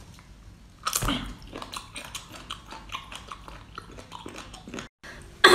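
Close-miked biting and chewing of a sea cucumber: a loud bite about a second in, then a quick run of short clicks and smacks of chewing that stops abruptly near the end.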